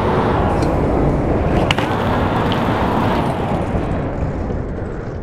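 Bike tyres rolling over rough pavement in a steady rumble, with a few sharp clacks, the loudest about two seconds in. The sound fades away toward the end.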